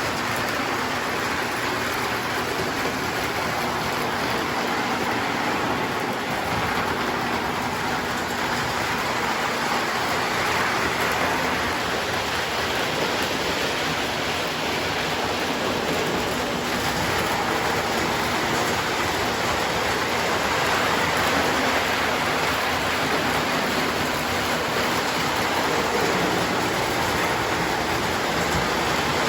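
Lionel toy train running steadily on its track: a continuous, even whirring rumble of motor and wheels.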